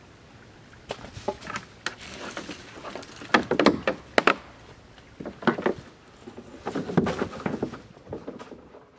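Irregular clusters of knocks and clatter that come and go in several bursts, the busiest a little past the middle.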